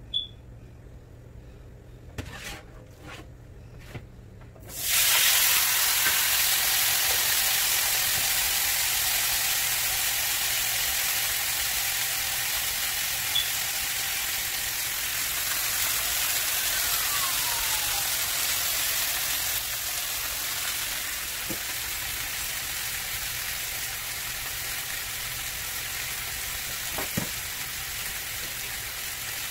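A few light knocks. About five seconds in, seasoned beef hits very hot olive oil in a nonstick skillet and sizzles loudly all at once. The sizzle carries on steadily as the meat sears, easing off slowly.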